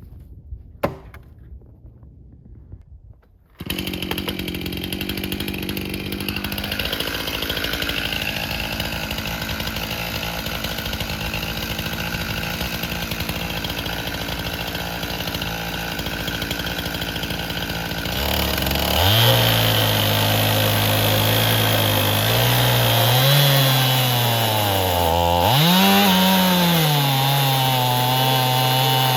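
Two-stroke chainsaw on an Alaskan chainsaw mill cutting a log. After a quiet start with a single knock, the saw comes in suddenly a few seconds in and runs steadily. Past halfway its engine note grows louder and clearer, and near the end the pitch dips and recovers twice, as the engine is loaded in the cut.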